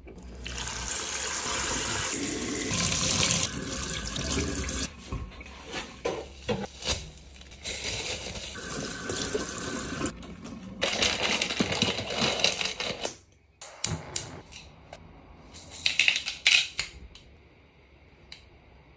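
Kitchen tap running into a stainless-steel sink, water splashing over produce being rinsed, in loud stretches that stop and start. Near the end it is quieter, with a few short knocks.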